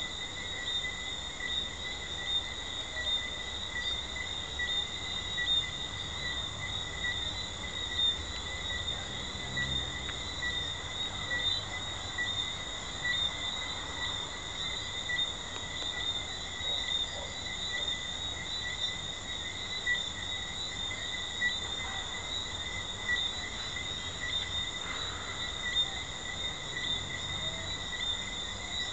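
Night chorus of Jamaican treefrogs: many high-pitched pulsing calls blending into a continuous, steady shrill chorus, with louder single calls standing out every second or two.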